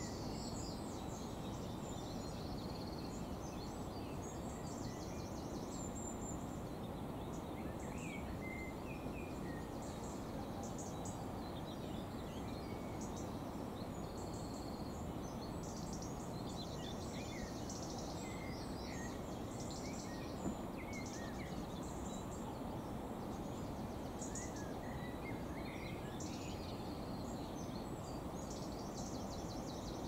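Outdoor ambience: a steady low rushing background with many short, high chirps of small birds scattered throughout, and a single brief click about two-thirds of the way in.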